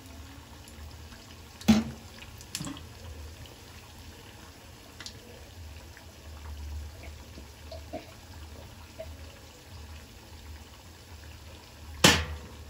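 Battered raw banana bajji deep-frying in hot oil in a steel kadai: a steady bubbling sizzle. Two sharp knocks stand out, one about two seconds in and one near the end.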